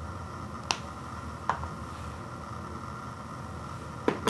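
Four short, sharp knocks from a bowl and a paper ice cream carton being handled and set down on a wooden table: two spaced apart in the first two seconds, then two in quick succession near the end. A steady background hum runs underneath.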